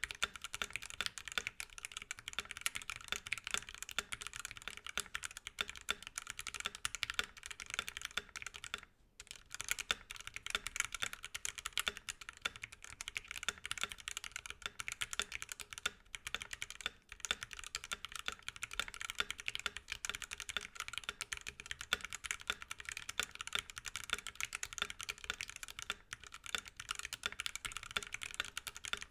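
Fast continuous typing on a custom 67-key mechanical keyboard with stock C3 Macho Banana Split linear switches on a brass plate, foam in the case, and PBT keycaps: a dense run of keystroke clacks, pausing briefly about nine seconds in.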